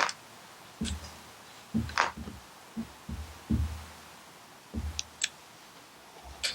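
Handling noises from a shotgun and its parts: scattered light clicks and a series of soft knocks at irregular intervals, with a few sharper clicks near the end.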